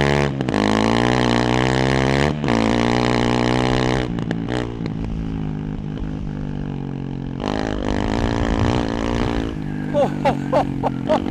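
Honda CRF300L single-cylinder engine, ECU-tuned and fitted with a high-flow airbox lid and aftermarket exhaust, accelerating hard under way. Its pitch climbs, breaks briefly at an upshift about two seconds in, climbs again, then eases off about four seconds in and pulls up again later on.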